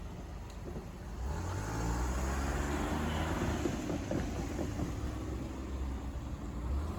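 A vehicle passing close by at a level crossing, its engine growing louder about a second in and staying loud.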